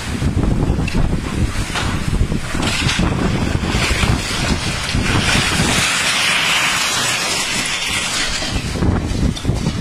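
Gale-force south-easter wind buffeting the phone's microphone in heavy, uneven gusts, with a louder rushing hiss for a few seconds in the middle.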